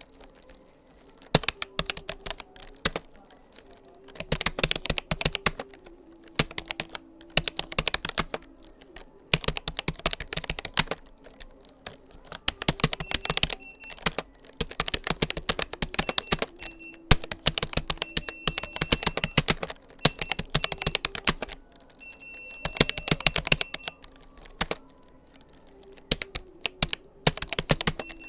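Typing on a Rapoo computer keyboard: rapid key clicks in bursts of a second or two, broken by short pauses, as in a timed typing test.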